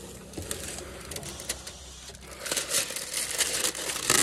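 Dark window tint film being peeled off a car's door glass by hand, the adhesive letting go in an irregular crackling that grows louder in the second half.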